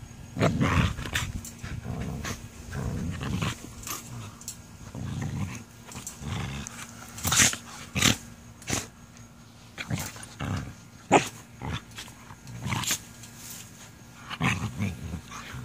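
Two puppies play-growling at each other in rough mouthing play, with low growls coming in spells and sharp snapping clicks in between.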